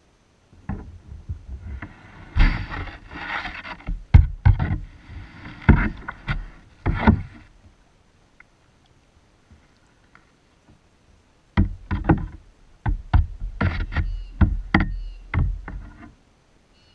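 Irregular knocks, thumps and scraping on a kayak hull as gear and a paddle are handled aboard. The sounds come in two bouts with a quiet gap of a few seconds between them.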